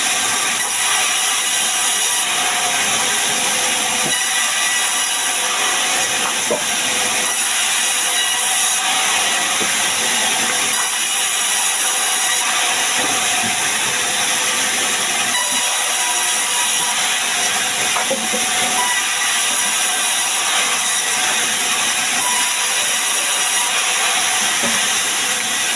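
Sawmill band saw cutting a sengon (albizia) log, squaring it into a beam: a loud, steady rush of noise from the blade running through the wood.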